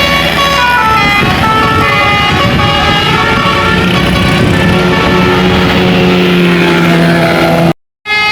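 Tour bus's 'telolet' musical air horn (basuri voice module) playing a melody of stepping, gliding notes over the bus's engine noise. It cuts out abruptly near the end, and another horn starts straight after.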